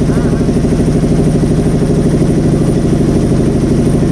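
Motorboat engine running steadily with a fast, even chugging.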